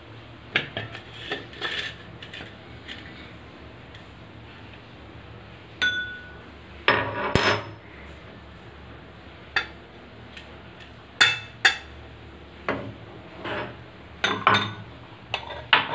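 Stainless steel plate and utensils clinking and knocking on a stone countertop as food is handled: about a dozen separate, irregular knocks and clatters, a couple of them ringing briefly.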